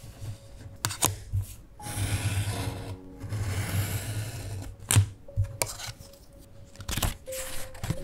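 Craft knife drawn along a ruler, slicing through a paper card on a cutting mat in two long scraping strokes, with sharp taps before and after as the ruler and card are set down and handled.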